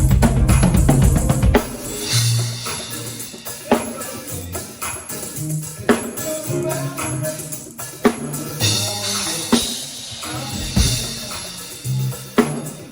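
Music with drums and tambourine over bass notes. Heavy bass for the first second and a half, then sharp hits roughly every two seconds.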